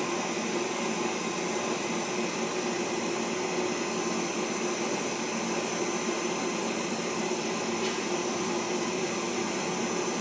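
Pet grooming dryer running steadily, blowing a constant rush of air from its hose nozzle onto a small dog's coat, with a steady hum underneath.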